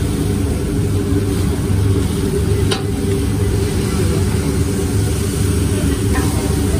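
A steady low rumble with food sizzling on a steel flat-top griddle. A metal spatula clicks against the griddle about three seconds in and again near the end.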